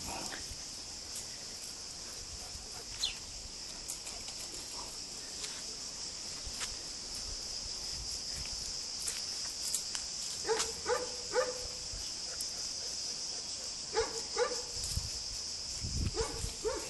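Weimaraner dogs giving short barks in quick groups of two or three, starting about ten seconds in, over a steady high hiss.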